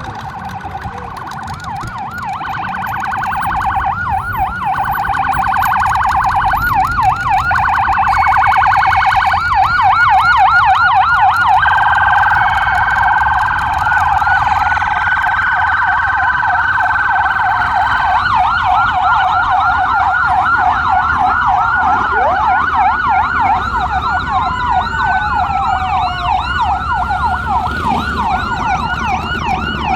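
Several sirens sounding at once, leading a procession of arriving motorcycles: fast yelping chirps alternate with a held high tone and slow wailing sweeps. The siren noise builds over the first few seconds, peaks around the middle, and has a low engine rumble underneath it.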